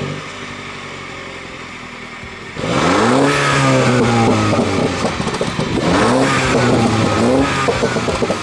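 MINI Cooper S's 192 hp turbocharged 2.0-litre four-cylinder heard at its twin centre exhaust tips, idling and then revved twice, about three and six seconds in, each rev rising and falling in pitch.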